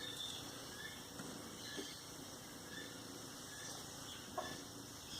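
Faint bird chirps, short and repeating about once a second, over steady background hiss, with a single sharp click about four seconds in.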